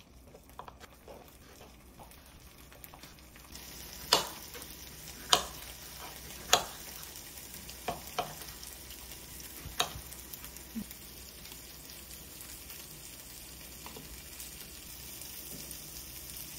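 A knife slicing through mozzarella and tomato, knocking on the cutting board about six or seven times between about four and ten seconds in, over a steady sizzle of food frying in a pan that sets in about three seconds in.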